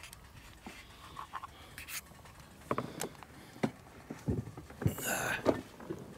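Footsteps crunching and rustling through dry fallen leaves, a series of uneven steps starting a little under halfway in.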